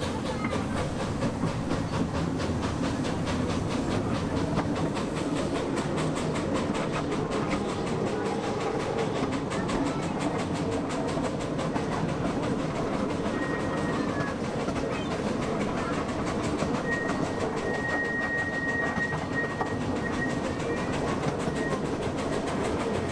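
Miniature-railway train running steadily, its carriages' wheels clattering over the track in a continuous rhythm. A faint high squeal comes and goes in the second half.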